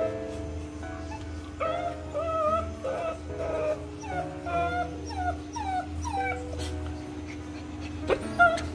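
German Shepherd puppy whining, a run of about eight short high whimpers that each fall in pitch, starting about one and a half seconds in and stopping a couple of seconds before the end: the puppy is upset at being left alone. Background music with steady held notes plays underneath.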